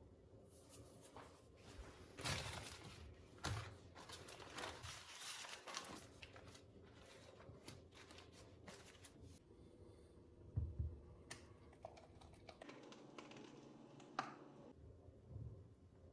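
Faint, scattered handling noises: soft knocks, scrapes and rustles, with a few louder knocks about two, three and a half, ten and a half and fourteen seconds in.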